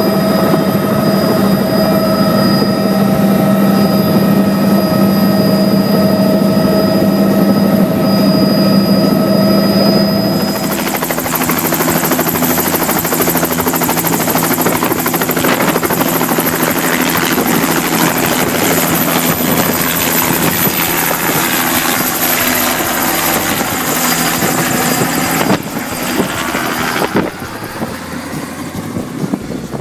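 Helicopter engine and rotor running. For the first ten seconds or so it is heard from inside the cabin as a steady hum and whine. It then switches to loud rotor noise and rotor wash close by as the helicopter lifts off the pad, and near the end it falls away as the helicopter departs.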